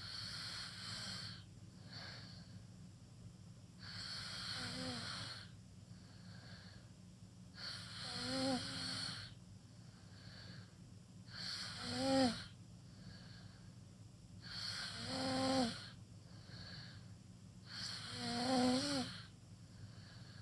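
A teenager snoring with the mouth wide open in deep sleep: six loud snores about every three and a half seconds, the later ones with a buzzing tone, and faint breaths between them.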